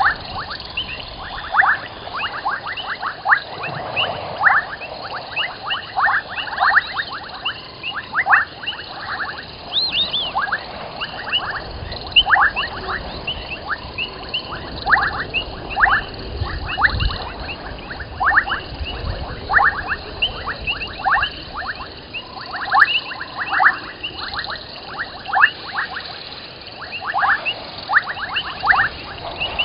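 Chorus of frogs calling at a waterhole at night: many short chirps, each falling in pitch, several a second and overlapping, with fainter higher chirps among them.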